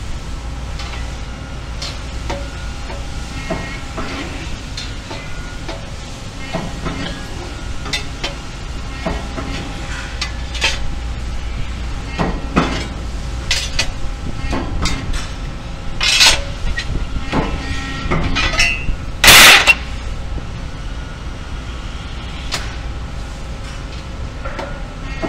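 Press brake and factory-floor machinery running with a steady hum, with scattered metallic clicks and clanks as sheet-metal parts are positioned and bent in the die. About three quarters of the way through comes one very loud, short burst of noise.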